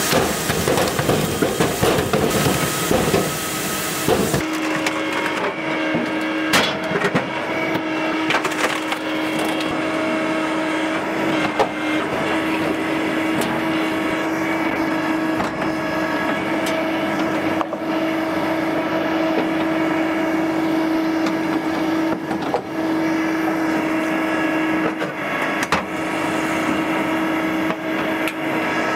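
Tractor-PTO-driven Japa 365 Pro firewood processor at work. About the first four seconds are a dense clatter of split firewood pieces knocking and tumbling off the outfeed conveyor into a metal trailer. After that the machine's steady hum runs on, with scattered sharp knocks of wood.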